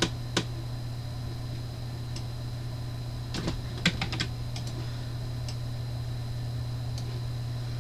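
A handful of sharp computer mouse and keyboard clicks: two near the start and a cluster around three and a half to four seconds in, over a steady low electrical hum.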